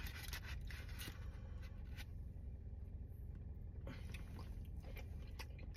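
A white plastic spoon scooping potato salad from a foam container, heard as a few faint clicks and scrapes over a steady low rumble in a car cabin.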